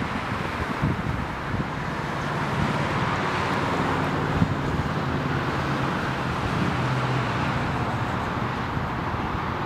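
Road traffic at an intersection: cars passing with a steady hiss of tyre noise and a low engine drone in the middle. Wind buffets the microphone.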